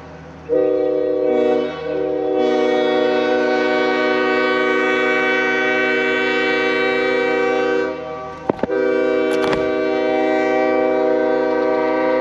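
Early sand-cast Nathan Airchime K5HL five-chime train horn (bells 1L, 1, 2, 3, 4) blowing its chord in long blasts. It starts about half a second in and is held for several seconds. Around eight seconds in it breaks off briefly, with two sharp clicks, then sounds again.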